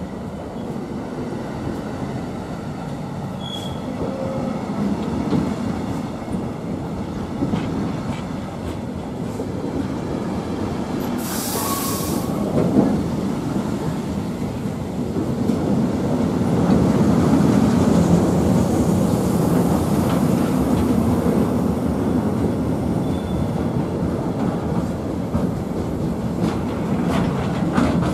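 A train running past on the rails, a continuous rumble of wheels with clickety-clack and a few brief faint wheel squeals. A short hiss comes about eleven seconds in, and the rumble grows louder after about sixteen seconds.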